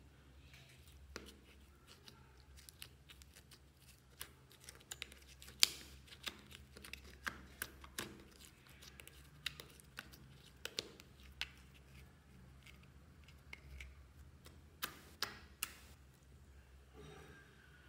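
Fingers mixing and kneading white slime with crumbled powder makeup, making irregular sticky clicks and small pops.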